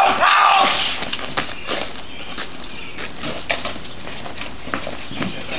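Men's shouting trailing off in the first second, then steady open-air background noise with scattered light taps and clicks.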